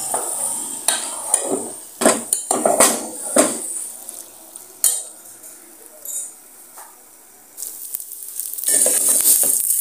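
A metal spatula scrapes and knocks against a metal cooking pot as a thick vegetable curry is stirred, in irregular strokes over the first few seconds, with a faint sizzle underneath. Near the end a louder, steady sizzling hiss sets in.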